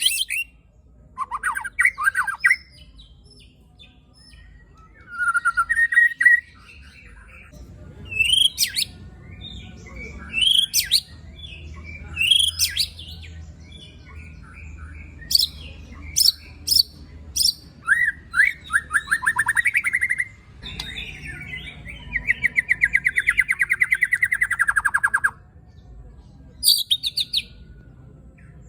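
White-rumped shama (murai batu) singing a rough, aggressive song of sharp, high whistled 'shots' (tembakan) and harsh rasping rattles (besetan). About three-quarters of the way through comes a long, fast, buzzy rattle that slowly falls in pitch.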